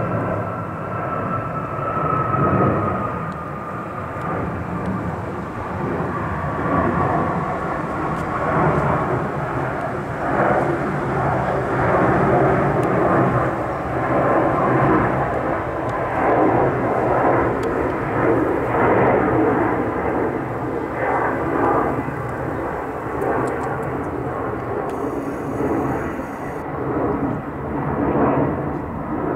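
Boeing 737-8 MAX's CFM LEAP-1B turbofans climbing out after takeoff overhead: a steady, loud jet roar that swells and fades a little, with a fan whine that slowly falls in pitch over the first several seconds.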